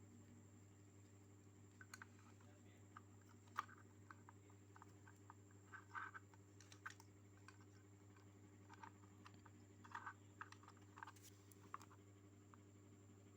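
Faint, scattered clicks and light taps, irregular and in small clusters, over a steady low hum.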